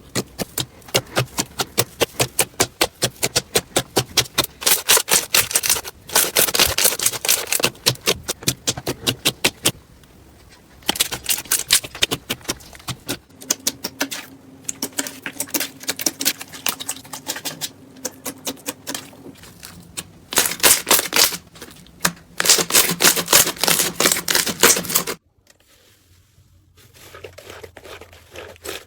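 Slime being squeezed and pressed by hand, making fast trains of sharp clicking and crackling pops. It comes in several short stretches that change abruptly, and the last few seconds are quieter, with fainter crackles.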